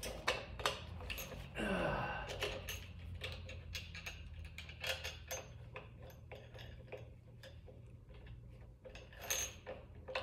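Metal fork parts and hand tools clinking and knocking while a motorcycle front fork is put together, with a short falling squeal about two seconds in.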